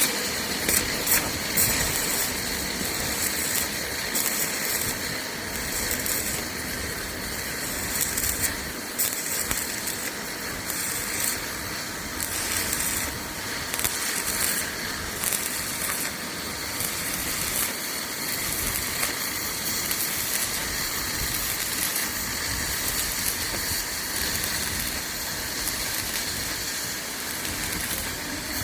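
Electric arc welding: the arc hissing and crackling steadily, with sharper pops every so often.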